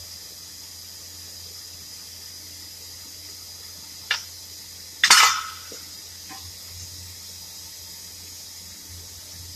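Metal clanking as tools and parts are handled: a sharp clank about four seconds in, then a louder one a second later that rings briefly, followed by a few light knocks. A steady hiss with a faint high whine runs underneath.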